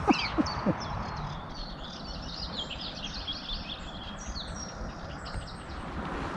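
Moorhen chick calling from the reeds, a rapid run of thin, high chirps that fades out near the end. It is a chick left behind by its parents and siblings, and the calling is its distress at being separated.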